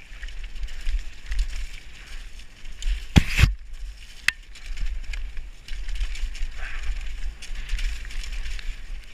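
Mountain bike clattering and rattling over a rough, rocky downhill dirt trail at speed, with a low rumble of wind on the helmet-mounted camera. A loud knock about three seconds in as the bike hits something hard, and a sharper click about a second later.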